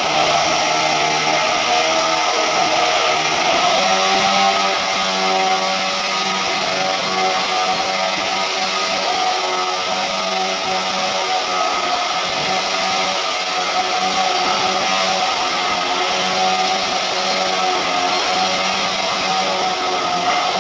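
Background music with guitar, over a steady hiss.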